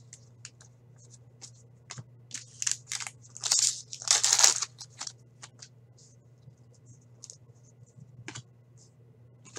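A foil trading-card pack torn open by hand, one crinkly tear lasting about a second, starting about three and a half seconds in. Short rustles and clicks of cards being handled come before and after, over a faint steady low hum.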